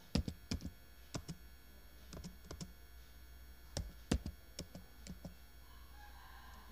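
Computer keyboard keys typed one at a time, about a dozen slow, irregular clicks with pauses between them; two louder strokes come close together about four seconds in.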